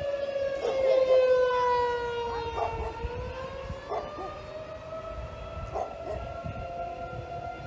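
Outdoor civil defense sirens wailing for a tornado warning. The main tone slowly falls in pitch, rises again about three seconds in, then holds steady.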